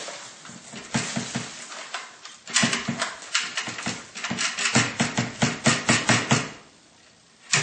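Hard plastic clattering and knocking as the Dyson DC28's detached clear bin canister is handled and its red release button is used. About halfway through comes a quick run of about ten sharp knocks, roughly six a second.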